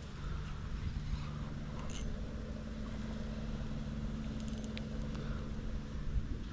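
A boat motor running at a steady pitch, a constant hum over a low rumble, with a few faint clicks.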